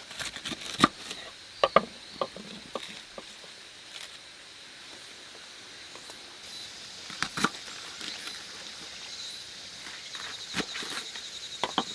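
Scattered light clicks and knocks of ingredients and utensils being handled while cooking, a few of them sharper, with a faint high pulsing trill joining about six seconds in.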